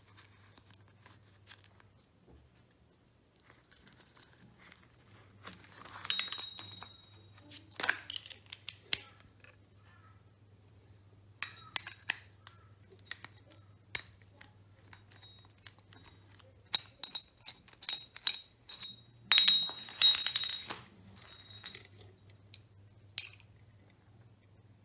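Steel sockets and a socket driver clinking against each other and against a metal torch head as they are handled, in scattered short metallic clinks with a brief ringing edge. The clinks come in several bunches, the loudest run about two-thirds of the way through.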